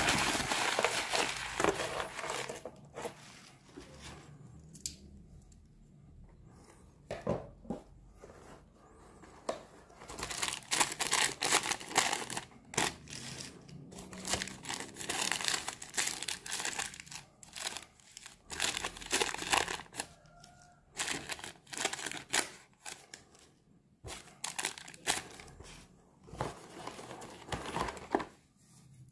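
Crumpled packing paper and plastic packaging crinkling and rustling as they are handled and pulled out of a cardboard box: loud at first, a quieter stretch of several seconds, then repeated bursts of crinkling.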